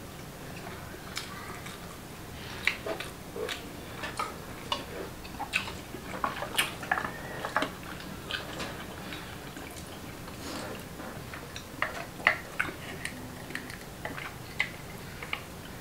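Close-miked eating of boiled clams: irregular small clicks of clam shells and chopsticks as the meat is picked out, mixed with wet chewing and lip smacks.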